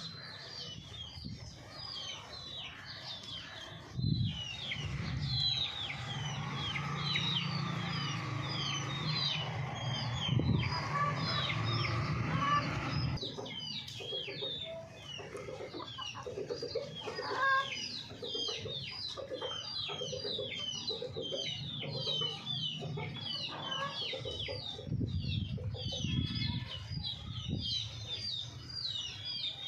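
Chickens clucking in a steady run of calls, over constant high, quick falling chirps from a flock. A low steady drone sits under them for several seconds near the start.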